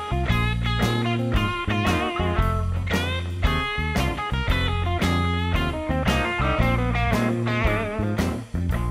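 Background music: an instrumental track led by a plucked electric guitar, with some wavering notes, over a bass line and a steady beat.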